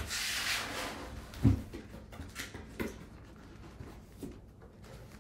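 Cardboard packaging handled as the box is opened: a rustling scrape, then a dull thump about a second and a half in, followed by a few light taps as the cardboard lid is lifted off.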